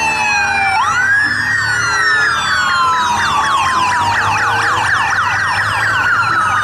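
Electronic police siren with several tones overlapping. It wails slowly up and down, switches about two seconds in to a fast yelp for a couple of seconds, then returns to the slow wail.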